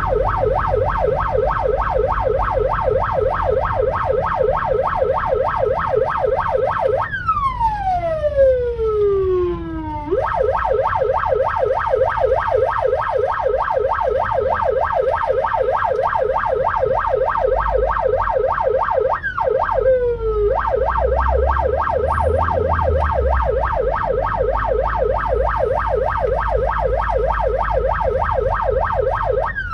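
Ambulance electronic siren in yelp mode, sweeping rapidly up and down several times a second. About seven seconds in, the yelp gives way to one long falling tone lasting about three seconds, then resumes. A short falling break comes near the two-thirds mark. A low vehicle rumble runs underneath.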